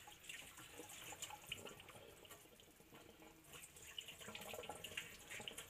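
Kitchen faucet running faintly over a skinned rabbit being rinsed by hand in a stainless-steel sink, with many small splashes and drips.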